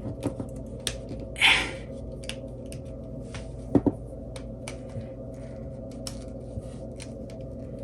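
Small clicks and taps of a smartphone being handled and pried apart, with a brief scrape about a second and a half in and a sharper double click near the middle, over a faint steady hum.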